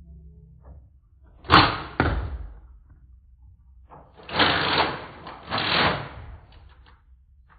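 Nerf foam-dart blaster shots. A sharp crack about one and a half seconds in, with a second hit half a second later, then a longer rushing noise that swells twice a couple of seconds after.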